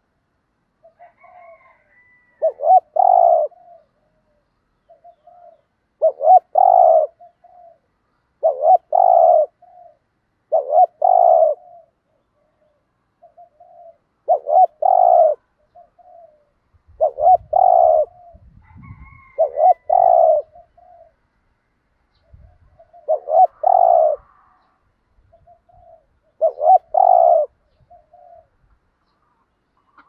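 Spotted dove cooing: a phrase about every three seconds, each a short soft note followed by a loud doubled coo, with faint single notes between the phrases.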